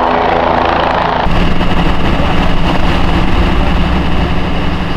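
Helicopter running loud and steady, its rotor beating over the engine; the sound changes abruptly about a second in.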